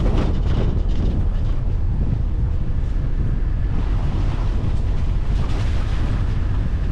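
Wind buffeting the microphone over the steady low rumble of a car driving along the road.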